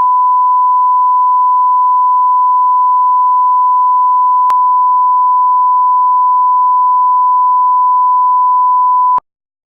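1 kHz reference test tone that accompanies SMPTE colour bars: one steady, loud pure tone that cuts off abruptly near the end, with a faint click about halfway through.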